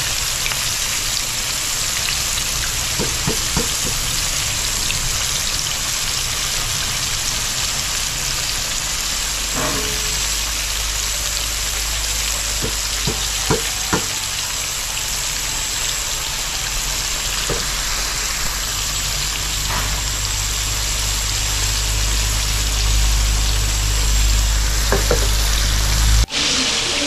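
Fish frying in hot oil, a steady sizzle with a few light clicks along the way. A low rumble grows in the second half, and the sound cuts off suddenly near the end.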